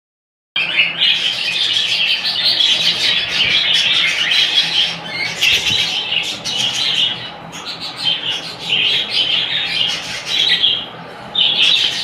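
A colony of small parrots (budgerigars and lovebirds) chattering and squawking in dense, overlapping bursts of rasping calls, easing off a little after the middle.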